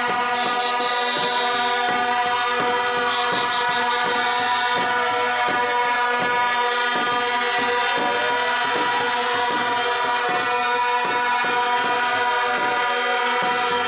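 Droning music: several steady held tones, with a tone that slowly sweeps up and then down every few seconds, over irregular drum beats.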